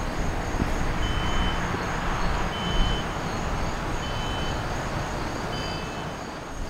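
Breeze rumbling on the microphone, with crickets and other insects trilling steadily. A short high beep repeats about every second and a half.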